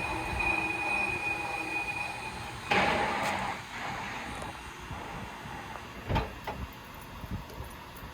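Mazak engine lathe's spindle gear train running with a steady whine, then shut down about three seconds in with a short rush of noise as it stops, followed by a few clunks.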